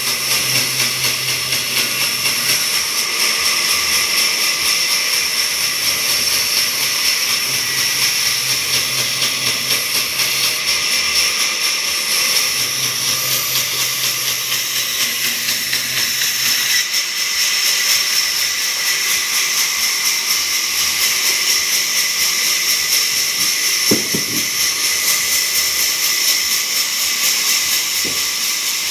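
Large sawmill band saw running and cutting lengthwise through a timber plank: a steady, high-pitched whine and rasp, with a brief knock late on.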